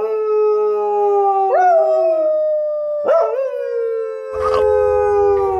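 A long, loud howling wail in three drawn-out notes. Each note starts with a sharp upward yelp and then sags slowly in pitch.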